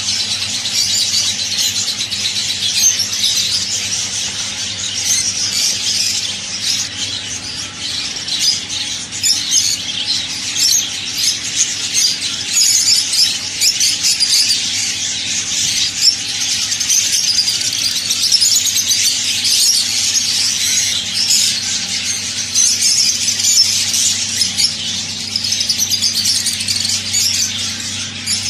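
Many caged birds chirping and squawking at once, a dense unbroken chatter, over a steady low hum.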